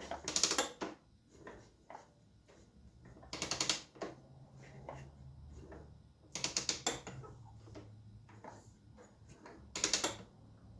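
Four short bursts of rapid metallic clicking, about three seconds apart, from hand tools and engine parts being handled during a two-stroke top-end rebuild, over a faint low steady hum.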